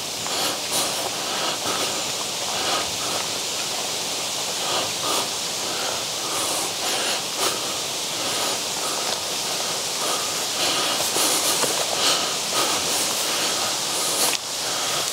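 Footsteps rustling and crunching irregularly through long grass and undergrowth, over a steady outdoor hiss.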